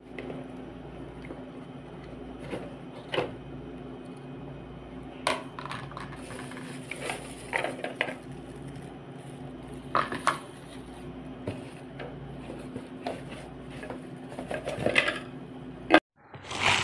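Hard parts of a manual meat grinder being handled: scattered light clinks and knocks, irregular and not a steady cranking rhythm, over a steady low hum.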